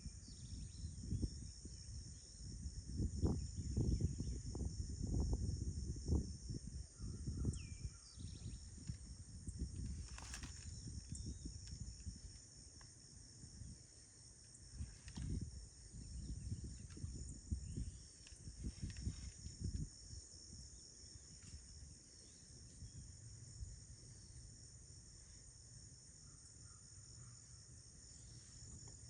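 A steady, high-pitched insect chorus, crickets or similar, shrilling without a break. Under it is a low, uneven rumble that is heaviest for the first twenty seconds or so, then eases off.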